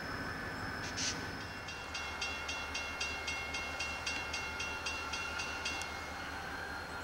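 Grade-crossing bell ringing fast and evenly, about four strokes a second, while the crossing gates come down; it stops near the end. Under it runs the steady low rumble of an approaching EMD GP40 diesel locomotive.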